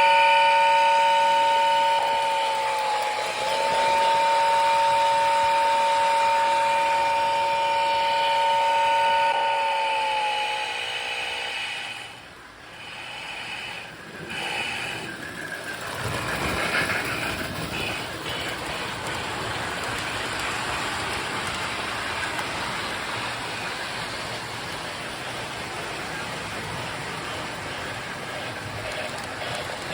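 Marx Sound of Power toy-train steam whistle blowing twice: a short two-note blast, then a longer one of about seven seconds, each sliding down slightly as it ends. After a lull, a steady hissing noise follows as the model train runs on.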